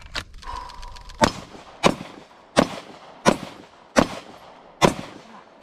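Handgun fired six times in steady succession, roughly two-thirds of a second apart, beginning about a second in, each shot followed by a short echo.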